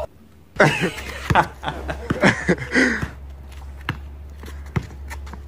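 A person laughing for a couple of seconds, then a basketball dribbled on a concrete driveway, a few single bounces near the end.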